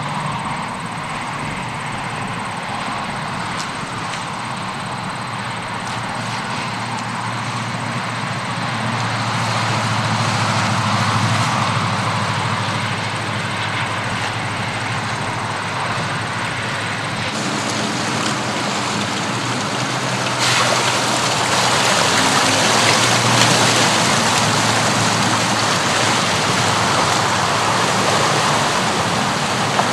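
BMW X6 M50d's straight-six diesel running as the SUV wades through a shallow stream, with water rushing and splashing around the wheels. The water noise grows suddenly louder about two-thirds of the way through.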